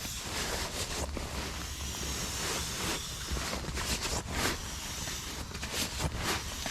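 Irregular rustling and crinkling of camp gear being handled and packed away, over a low, intermittent rumble of wind on the microphone.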